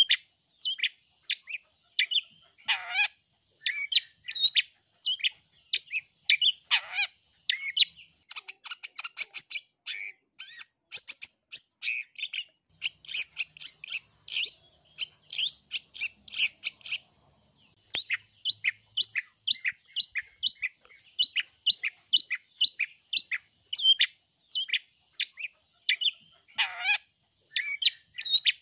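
Long-tailed shrike (cendet) calling: a fast, unbroken run of short chirping notes that crowds closer together in the middle. Three times a longer call sweeps steeply down in pitch.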